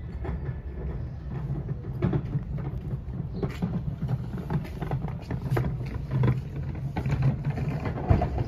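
A cat chewing dry kibble, with irregular crisp crunches, over a steady low hum.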